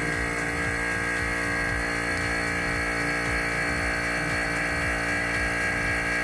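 Vacuum pump running with a steady hum, pumping down a vacuum chamber.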